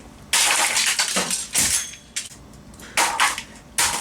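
A camcorder's plastic and metal casing and parts being smashed and broken apart: four loud crunching, clattering bursts, the first lasting about a second.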